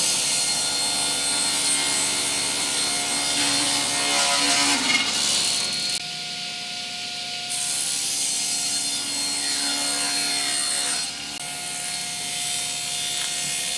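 Table saw running and cutting plywood: a steady motor whine under the noise of the blade going through the sheet. The cutting noise drops off briefly about six seconds in and again near eleven seconds, between passes.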